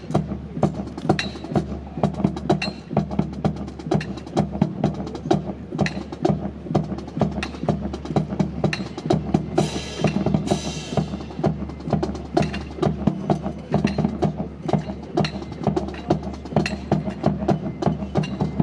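Rapid, sharp clicks and slaps of drill rifles being spun, caught and struck in unison by a rifle drill team, several a second, over music.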